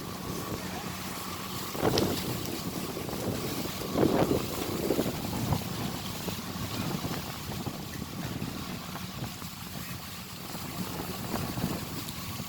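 Kubota 70 rice combine harvester running with a steady mechanical drone, wind buffeting the microphone. There are louder bursts about two and four seconds in.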